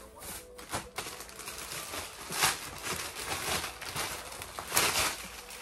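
White plastic poly mailer bag crinkling and rustling as it is handled and torn open, with two louder bursts, one about two and a half seconds in and one near the end.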